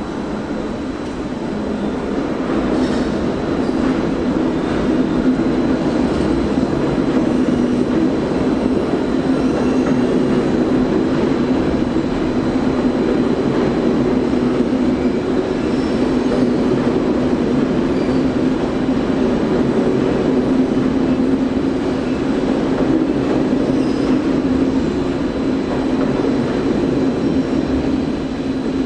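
SBB double-deck passenger train hauled by a Re 460 electric locomotive rolling past: a steady, loud rumble of wheels on rails that builds over the first few seconds and then holds.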